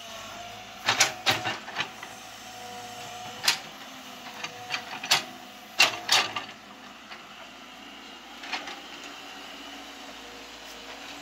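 Tracked hydraulic excavator digging into rocky, sandy ground, its engine running steadily under a string of sharp knocks and clatters as the steel bucket strikes and scrapes through stones. The knocks come thickest in the first half and die down to a few near the end.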